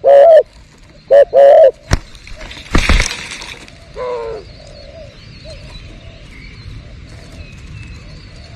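Spotted doves cooing: two loud, distorted coos in the first two seconds, then a shorter coo at about four seconds and fainter repeated coos after it. A sharp click comes just before two seconds, and a loud crash-like noise about three seconds in.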